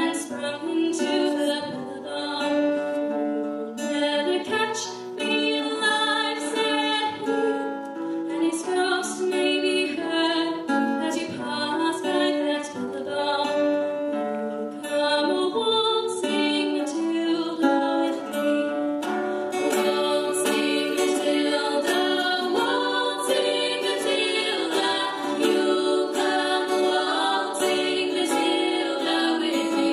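Background music: acoustic guitar playing a steady plucked accompaniment under a melody.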